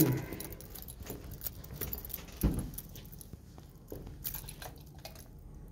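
Footsteps on a vinyl-tile floor with a ring of keys jangling at each step, and one louder knock about two and a half seconds in.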